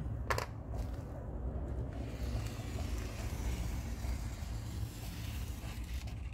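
A marker cap pulled off with a short click, then the marker tip scratching over the MDF board for a few seconds, all over a steady low rumble.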